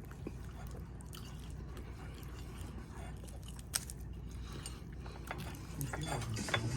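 Someone chewing crispy fried chicken, with a few faint crunches scattered through.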